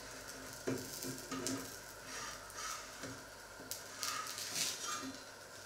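A thin pancake sizzling in a hot frying pan, with repeated short scraping and knocking sounds as the pan is handled on the hob.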